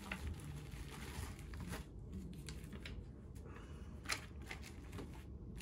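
Faint rustling and sliding of clear plastic laminating pouches and their packaging being handled, with a couple of light taps about four and five seconds in.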